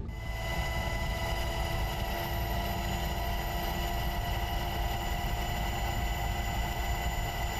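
Steady engine drone with several constant high whining tones over a low rumble, starting abruptly.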